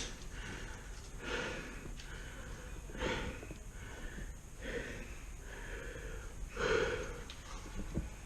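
A person breathing close to the microphone, several breaths one to two seconds apart, the last one the loudest.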